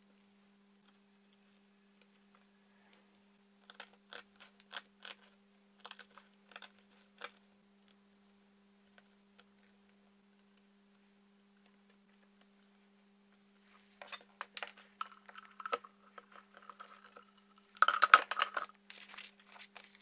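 Craft knife cutting through a leather strap: scattered short scratching clicks, then a busier run of cutting and handling in which a thin squeaky tone rises, loudest near the end. A faint steady hum sits underneath.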